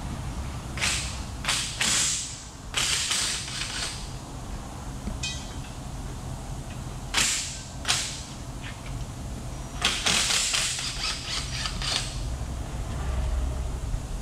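Ratchet wrench turning the drive shaft bolts on the underside of a Suzuki Every van, in several short bursts of ratcheting with pauses between.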